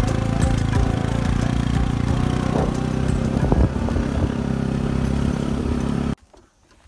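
Motorcycle engine running steadily under way, heard from the moving bike; the sound cuts off abruptly about six seconds in.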